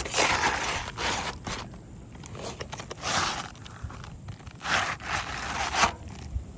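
Footsteps scuffing and scraping on an asphalt shingle roof, a handful of irregular gritty steps.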